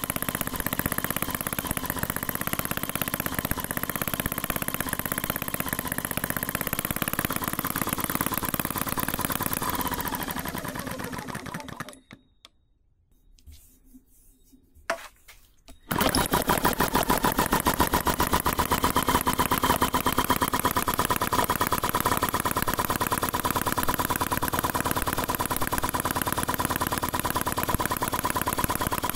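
Retrol HM01 single-cylinder four-stroke model engine running, then slowing with a falling pitch and stopping about twelve seconds in. After a few near-silent seconds and a small knock, it is restarted by hand at the flywheel and picks up at once, running steadily again.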